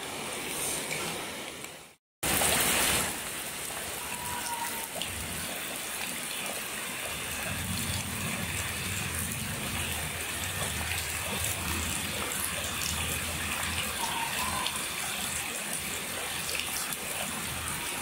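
Rain falling steadily on floodwater, an even hiss. After a brief break about two seconds in, it comes in loudest for a second, then settles.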